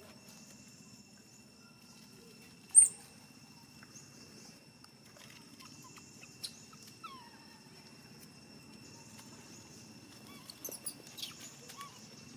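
Outdoor ambience among a troop of long-tailed macaques: a steady high buzz over a low hum. A brief, sharp, very loud high squeak comes a little under three seconds in. Faint chirps and soft clicks follow near the end.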